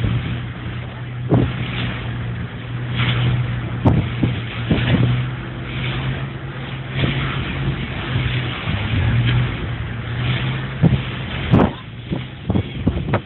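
Boat engines running with a steady low drone over the rush of wake water, broken by irregular knocks and thumps, heard through a basic mobile phone's microphone.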